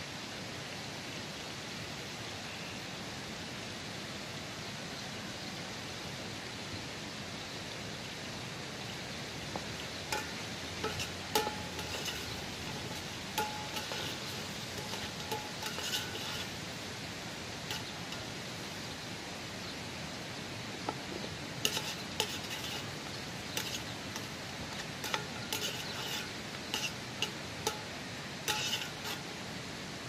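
Steady rush of a nearby stream. From about ten seconds in, a metal utensil clinks irregularly against metal bowls and dishes, each clink ringing briefly.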